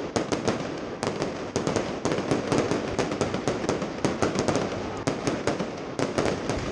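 Fireworks display going off overhead: rapid sharp cracks and bangs, several a second, over a steady noisy background.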